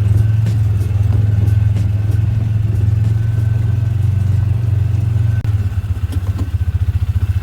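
A vehicle driving along, a loud low engine and road drone with light rattles, which turns choppy and uneven about five seconds in.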